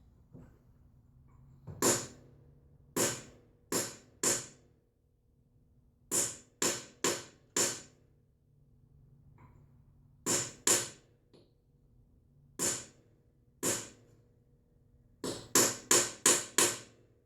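A hammer striking the Helicoil kit's setting tool, driving the insert's knurled end into the spark plug hole: about seventeen sharp metal taps in small groups of one to five, with a quick run of five near the end.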